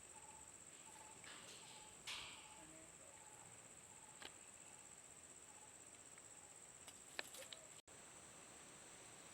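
Faint insect chirping: a steady high-pitched trill, with a lower chirp repeating about twice a second. A few sharp clicks and a brief rustle stand out, the rustle about two seconds in and the clicks near the end.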